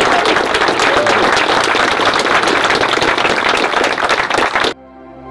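Crowd of wedding guests applauding, with a whoop or two in the first second. The applause cuts off abruptly about four and a half seconds in, giving way to soft, slow instrumental music.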